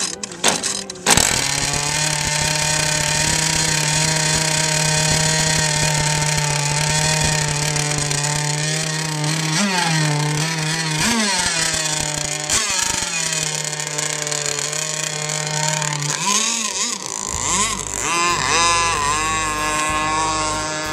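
Small two-stroke gas engine of an RC racing catamaran, catching with a sudden start about a second in after a few clicks of cranking. It idles steadily with short throttle blips, and near the end revs up and down as the boat runs out on the water.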